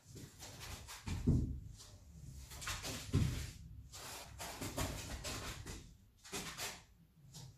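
Footsteps scuffing on a concrete floor, with clothing rustle and a puppy moving about, in a series of short scuffs and two heavier thumps about a second and three seconds in.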